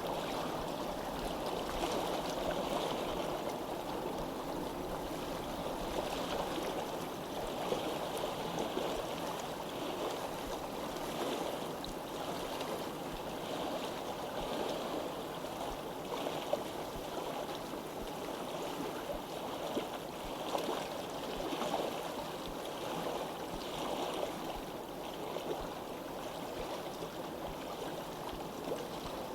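Running water, as of a stream flowing and babbling steadily, with small irregular splashes and gurgles.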